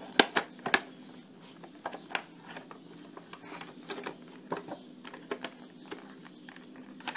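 Cardboard box and clear plastic blister tray being handled and pulled apart: sharp clicks and crackles of packaging, loudest in the first second, then scattered lighter clicks.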